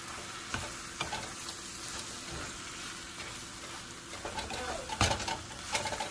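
Fried tortilla pieces and scrambled eggs sizzling in a frying pan while a spatula stirs and scrapes them, with a louder burst of scraping about five seconds in.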